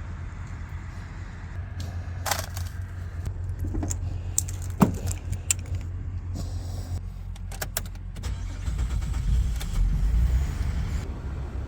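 Concrete mixer truck's engine running with a steady low rumble that grows louder about nine seconds in, with scattered sharp clicks and rattles over it.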